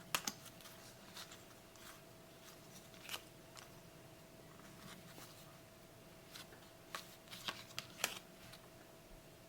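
Faint handling of paper trading cards: the base cards being slid and flicked over one another, giving scattered soft clicks and rustles, a few right at the start, one about three seconds in, and a cluster between seven and eight seconds. A faint steady hum sits underneath.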